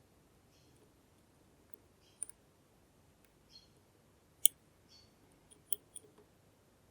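Lock picks working in the keyway of a NEMEF NF4 dimple lock: faint scraping with scattered small, sharp clicks, the loudest about four and a half seconds in.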